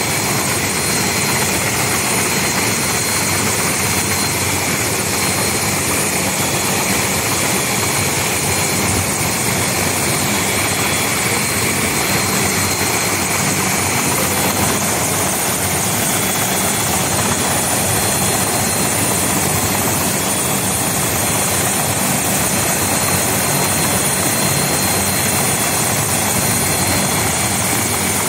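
Military helicopter running on the ground with its rotor turning: a steady turbine whine over continuous rotor and engine noise.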